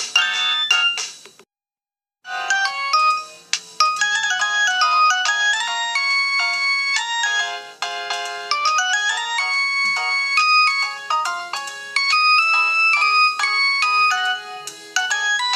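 Polyphonic MIDI ringtones from old Samsung phones, played on a Nokia 112 phone. One tune breaks off about a second and a half in, and after a short silence a new multi-note melody starts.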